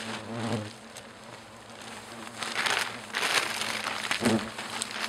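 Large plastic bag rustling and crinkling in irregular bursts as it is handled and closed over a collected hornet nest. The bursts start about two and a half seconds in.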